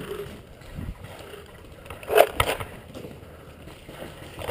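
Two quick paintball marker shots, about a quarter of a second apart, a little over two seconds in. Between them and around them is the softer noise of a player moving through dry grass.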